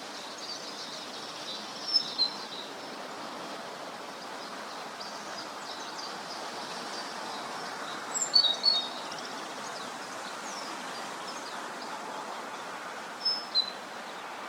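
Songbirds chirping over a steady outdoor hiss: faint high chirps throughout, with louder short calls twice about two seconds in, a quick cluster a little past the middle, and two more near the end.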